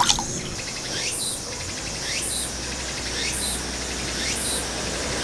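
Insects calling in an evening chorus, a short high buzzy call repeating about once a second, four times. A short sharp click at the very start.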